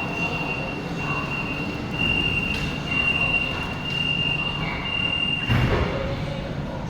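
Fuzhou Metro Line 6 Type B metro train running on the rails with a steady, thin, high-pitched wheel squeal over the rumble. The squeal stops about five and a half seconds in, at a short thud.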